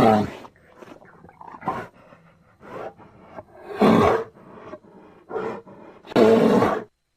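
Grizzly bear roaring: three loud roars, at the start, about four seconds in and near the end, with shorter, quieter growls between them.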